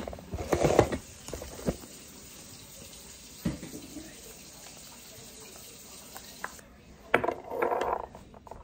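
A wooden mortar and pestle knocking and clattering in use. There is a burst of clatter at the start, a few single knocks, and a louder rattling stretch near the end.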